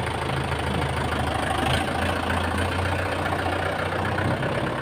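Farm tractor's diesel engine running at low, steady revs as the tractor moves off slowly.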